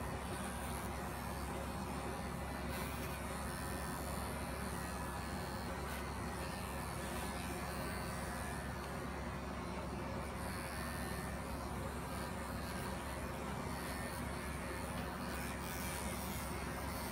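Electric animal clippers running with a steady buzz while shearing the wool off a German angora rabbit's hind leg.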